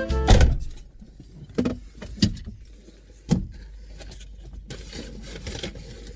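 Low steady hum of the van running, heard from inside the cabin, with a loud bump right at the start and three sharp knocks or clicks over the next few seconds.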